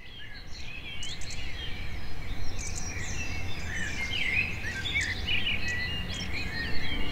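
Several birds chirping and singing in quick, overlapping calls over a low, steady outdoor rumble, fading in over the first second or two.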